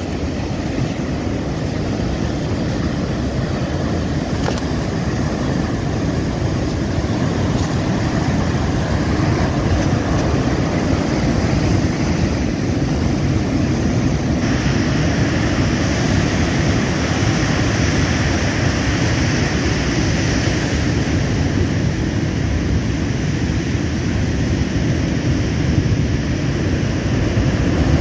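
Heavy storm surf under cyclone winds breaking continuously onto the shore: a loud, steady rush of noise, growing brighter and hissier about halfway through.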